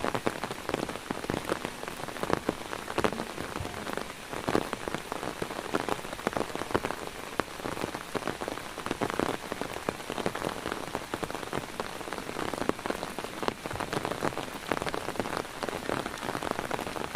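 Steady rain, with many sharp drop strikes on a hard surface.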